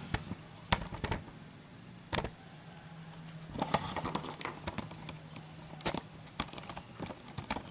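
Scattered light clicks and knocks of handling around a stripped-down scooter engine, with a faint steady high-pitched whine underneath.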